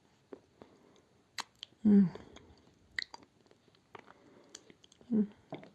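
Close-miked chewing of clay: scattered sharp crunches and wet mouth clicks, with two short voiced sounds from the eater, about two seconds in and near the end.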